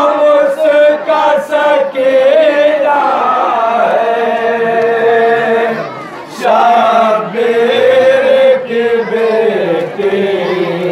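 Men chanting a noha, a Shia mourning lament, into a handheld microphone: a slow, drawn-out melody with long held notes and gliding pitch, with a brief break a little before the middle.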